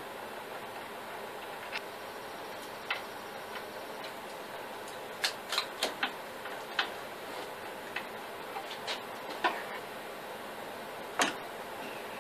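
Irregular clicks and taps of plastic and small parts as a cooling fan is worked free of a laptop cooling stand, some in quick clusters, over a steady low hiss.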